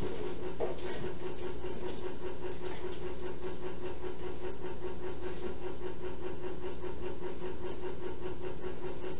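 A steady, even hum with a constant tone, like a room appliance or the camera's own line noise, with a few faint brief scratchy sounds over it in the first few seconds.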